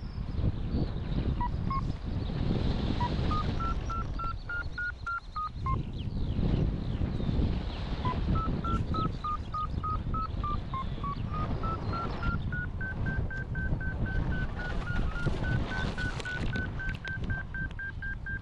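Paragliding variometer beeping in short beeps, about three a second, whose pitch steps up and down with the climb rate. It signals the glider climbing in lift, and the beeps sit highest from about twelve seconds in, a stronger climb. A steady rush of wind on the microphone runs underneath.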